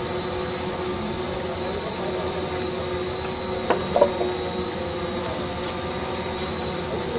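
Road roller's diesel engine running with a steady hum, with two short sharp clicks about four seconds in.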